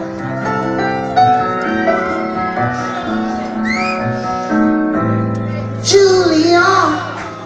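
Rock band playing live with keyboards, long held keyboard chords over bass and guitars, and a sudden loud crash about six seconds in.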